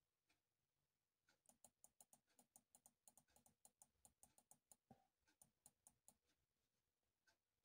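Near silence with faint, quick clicking in the middle stretch, dying away about two seconds before the end.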